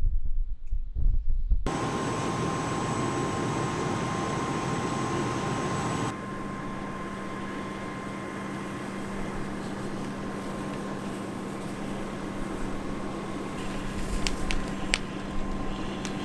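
Steady rushing noise with a faint hum, of the kind a fan or air conditioning makes. It starts abruptly after a low rumble in the first two seconds and changes character suddenly again about six seconds in. A few sharp clicks come near the end.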